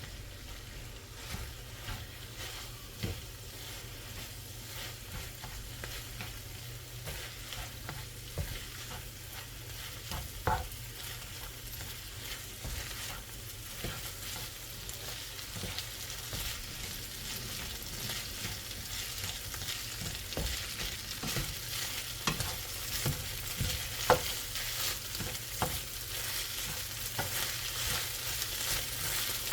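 Fried rice with sausage and vegetables sizzling in a pan as it is stir-fried, with a spatula scraping and now and then knocking against the pan. The sizzle grows louder through the stretch, and one knock about three-quarters of the way through stands out.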